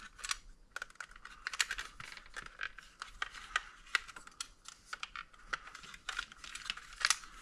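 Irregular light clicks, taps and scrapes of small power-supply parts being handled and worked loose by hand during disassembly.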